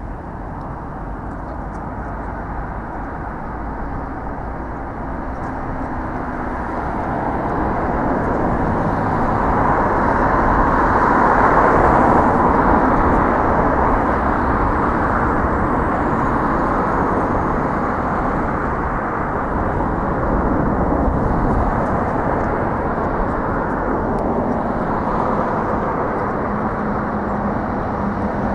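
Outdoor vehicle traffic noise: an even, toneless hiss that grows louder over the first dozen seconds or so and then holds steady.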